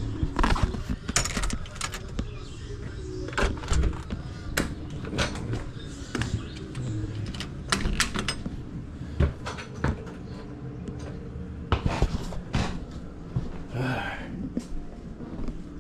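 Scattered knocks and clicks from indoor handling, a door opening and closing among them, in a small room.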